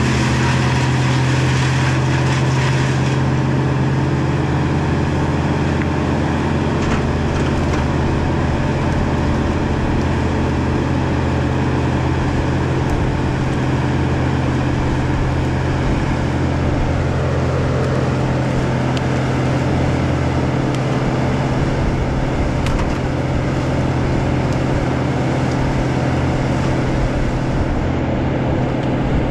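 An engine running steadily, a constant low drone that neither revs up nor cuts out.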